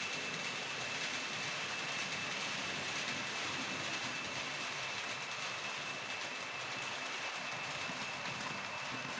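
H0-scale model train, an electric locomotive hauling passenger coaches, running along the track with a steady high whine over a constant rolling hiss.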